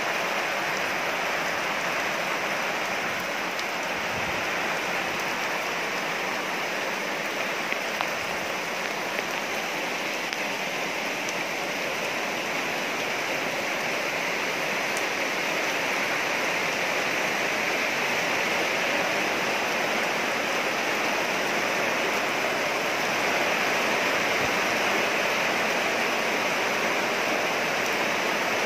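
Steady rain falling, an even hiss that holds level throughout.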